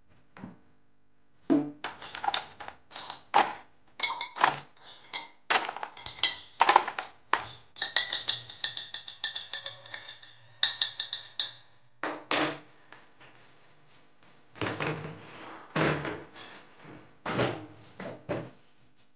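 Ice cubes and a drinking glass clinking and knocking as an iced drink is made: irregular clinks and knocks, with a ringing stretch in the middle.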